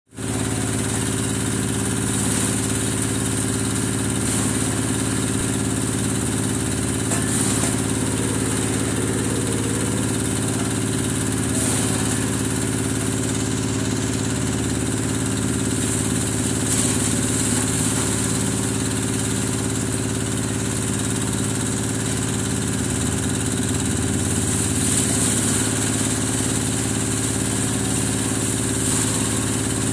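Engine-driven grass chopper running steadily while fodder grass is fed in and chopped: a constant small-engine drone with the cutter's hum, and a few brief hissy swells.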